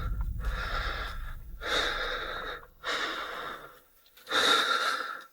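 A person breathing heavily close to the microphone: about four loud, rushing breaths, each about a second long, with short pauses between.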